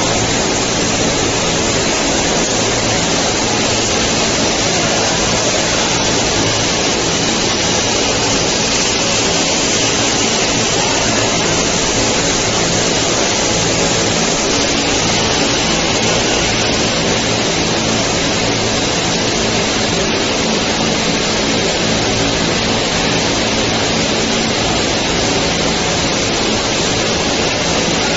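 Ceiling-tile roller coating line running: a loud, even rushing noise with a faint steady low hum underneath.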